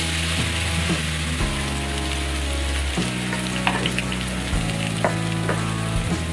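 Rice-flour-battered kangkung and mustard greens deep-frying in hot oil in a stainless steel pan: a steady, busy sizzle with a few sharp crackles.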